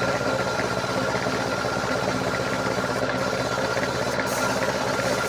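A motor running steadily, with an even mechanical hum.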